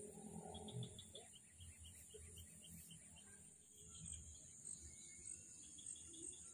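Faint insect chorus in swamp grass: a steady high-pitched buzz, with a quick run of chirps, about five a second, from about half a second to three seconds in.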